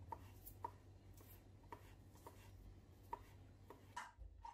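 Kitchen knife slicing ham into fine strips on a cutting board: faint, even knocks of the blade on the board about twice a second, stopping near the end as the strips are gathered up by hand.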